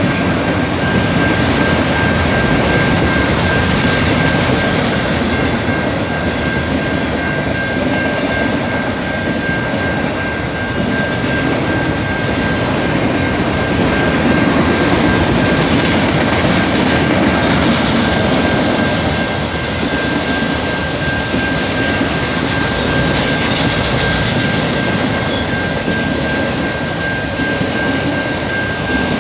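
Canadian Pacific freight train rolling slowly past at a level crossing, a steady rumble and clatter of cars on the rails. A thin, steady high tone runs through it all.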